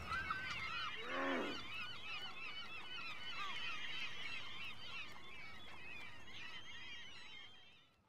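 A chorus of many overlapping animal calls: short chirps and squeals, with one lower honk-like call sliding down about a second in, fading out near the end.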